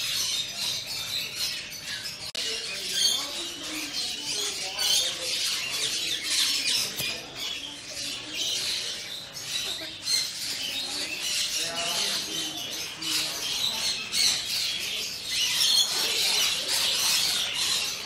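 A crowd of pet parrots and small birds chattering and squawking nonstop, a dense mix of chirps and screeches with frequent short louder calls.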